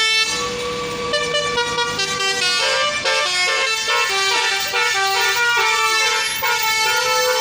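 Bus telolet air horn playing a melody. Several horn tones sound together and step from note to note, changing faster in the middle of the tune.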